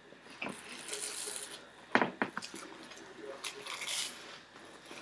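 Mouth noises of dry Weetabix being chewed in a timed eating race: muffled munching with short breathy huffs of air, and a few sharp clicks about two seconds in.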